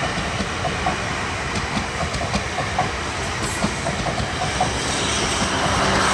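South Western Railway Class 444 Desiro electric multiple unit passing through the station, its carriages running by with a steady rumble. The wheels give irregular clicks over the rail joints, and the noise grows louder near the end.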